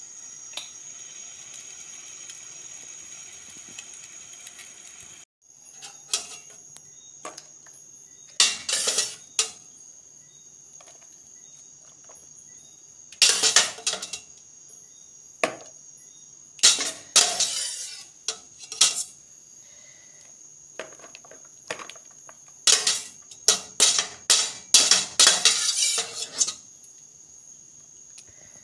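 Metal slotted spatula knocking and scraping against a plastic bowl while tossing fried fish with sliced vegetables, in several short bursts of clicks and clinks, the longest near the end. A steady high-pitched whine runs underneath.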